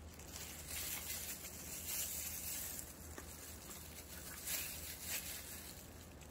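Faint crinkly rustling of disposable plastic gloves handling a food can, swelling a little a few times with no sharp knocks.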